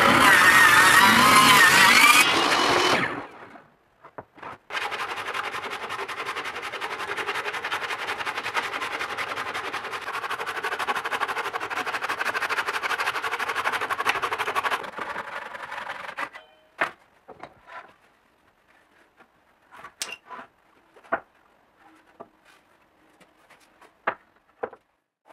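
Power saw cutting through a hardwood board, its pitch wavering under load, stopping about three seconds in. After a short pause a second saw cut runs for about ten seconds with a fast, even buzz, then stops, followed by scattered light knocks of boards being handled.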